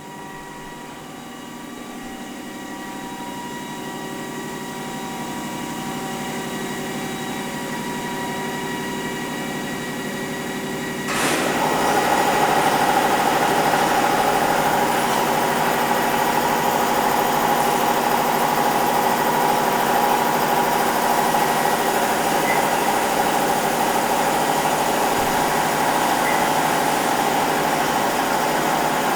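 Haas ST-20 CNC lathe running: a steady machine whine that grows slowly louder, then about eleven seconds in a sudden jump to a much louder, noisier run that holds steady.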